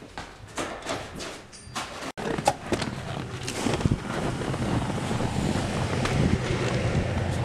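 Running footsteps, about three a second. About two seconds in they break off sharply, and a rising rush of wind buffeting the microphone takes over, with the footfalls of someone running on snow underneath.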